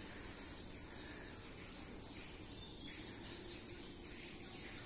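Steady, high-pitched drone of an insect chorus in woodland.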